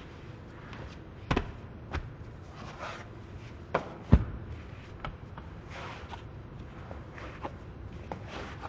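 A large mass of bread dough being lifted and slapped down on a floured worktable by gloved hands: four dull thuds, the loudest about four seconds in, with soft rustling of the dough being folded between them.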